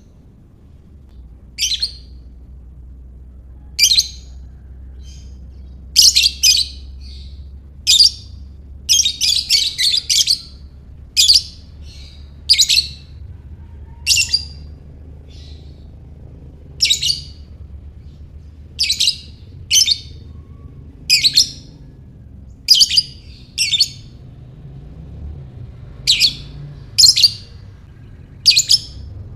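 Lovebird giving short, shrill chirps every second or two, with a quick run of calls about nine seconds in, over a faint low hum.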